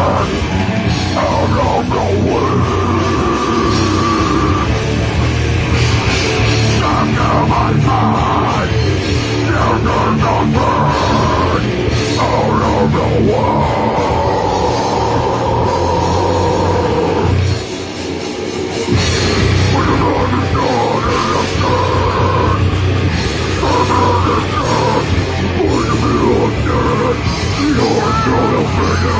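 Grindcore band playing live, loud and distorted, with a brief drop about eighteen seconds in before the full band comes back in.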